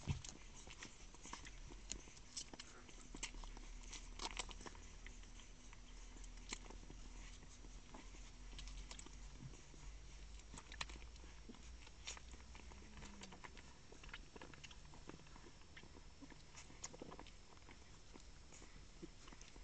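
Puppies suckling from their mother: faint, irregular wet clicks and smacks of nursing, over a steady low hum.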